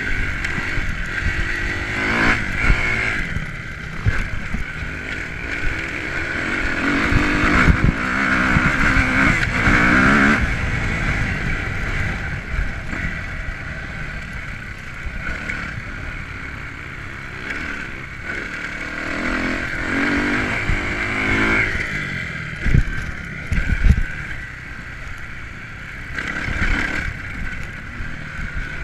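2009 Kawasaki KX250F motocross bike's single-cylinder four-stroke engine heard from on board while it is ridden around a dirt track, revving up and falling back repeatedly through gear changes and corners. Two sharp heavy thumps come a little over two-thirds of the way through.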